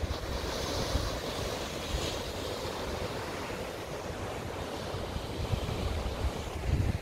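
Ocean surf breaking and washing over the rocks below, with wind rumbling and gusting on the microphone, the strongest gust near the end.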